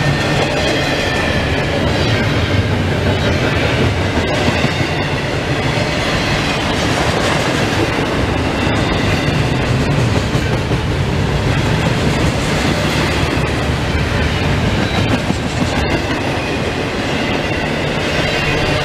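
Double-stack intermodal container cars of a CSX freight train rolling past, a loud steady rumble with the clickety-clack of steel wheels on the rails.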